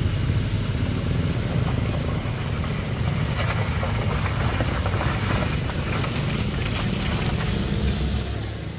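Heavy vehicle engine running with a deep, steady rumble as it works up a steep hill, with a stretch of grittier rattling noise in the middle.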